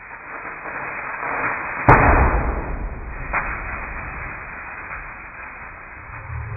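Butane-filled balloon exploding: a swelling whoosh of burning gas, then a sharp bang about two seconds in, followed by the noise of the flames slowly dying down, with a smaller crack about a second and a half after the bang.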